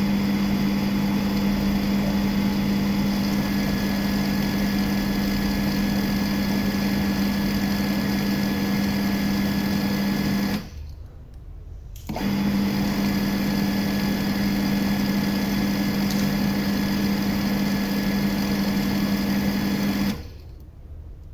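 A small electric motor running with a steady hum. It stops for about a second and a half midway, starts again, and cuts off shortly before the end.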